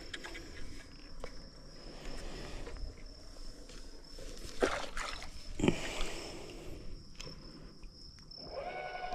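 Steady high-pitched insect drone, with scattered clicks and a few louder knocks about halfway through.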